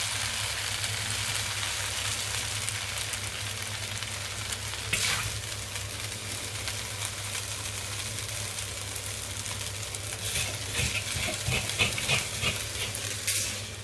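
Stir-fried egg noodles still sizzling in a hot wok just after the flame is turned off, the hiss slowly dying down. A metal spatula scrapes and clanks against the wok once about five seconds in and in a run of strokes near the end as the noodles are lifted out to plate.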